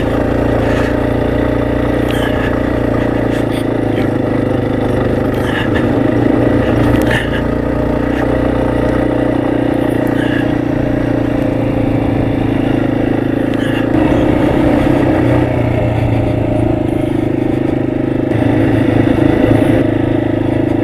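Dual-sport motorcycle engine running steadily at trail speed, swelling a little a couple of times, with scattered clicks and clatter from the bike over rough ground.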